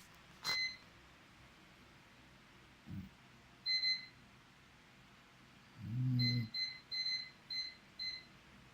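A sleeper snoring: one long, loud snore about six seconds in and a faint short one near three seconds. Short high electronic beeps sound over it: once about half a second in, twice near four seconds, then five in a row between six and eight seconds.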